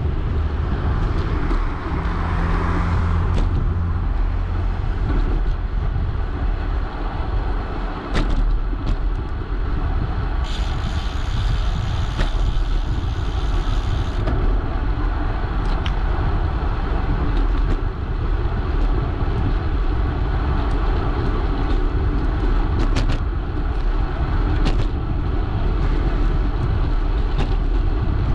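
Steady low rumble of wind and road noise on the camera microphone of a bicycle being ridden along an asphalt road, with a few sharp knocks from bumps. A few seconds of higher hiss come midway.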